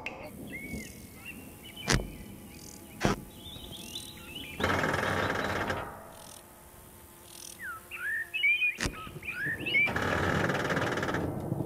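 Cartoon sound effects for a long-legged spider tugging at a lump of chewing gum stuck in its web: three sharp snapping clicks, two buzzing rattles about a second long each, and short high chirping calls.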